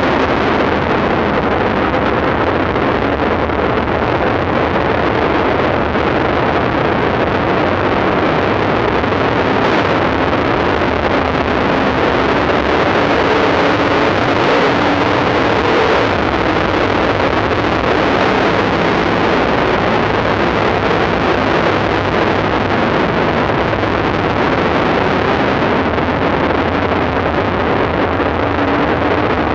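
Dirt late model race cars running on the track, heard as a steady, dense wash of engine noise through a poor microphone, with no single car standing out.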